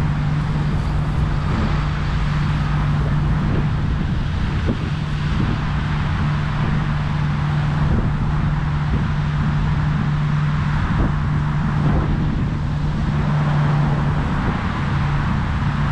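Steady road traffic noise from passing cars, with a constant low hum underneath and a few faint ticks.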